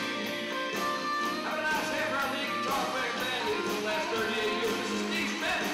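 Acoustic guitars strummed in a steady rhythm, playing a song.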